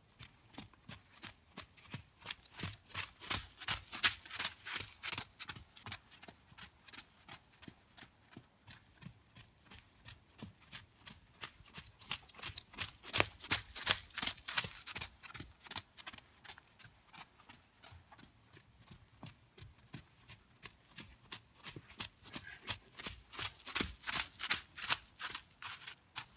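Hoofbeats of a Nez Perce horse moving around a dirt arena: a steady run of about four thuds a second. They grow loud three times as the horse passes close.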